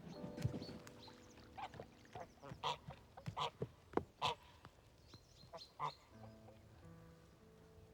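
A string of short, sharp animal calls, about ten of them, in the middle stretch. Soft background music with held notes plays at the start and comes back near the end.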